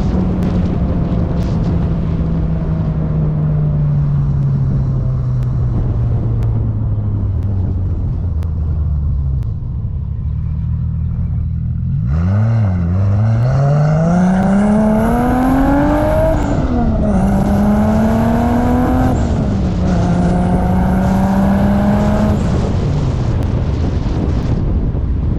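Turbocharged 2JZ straight-six in a 1987 Toyota Supra on a test drive. The engine note falls steadily as the car slows for about ten seconds. About twelve seconds in it pulls hard, revs climbing through two quick upshifts with a high whistle over the engine, then holds and drops away near the end.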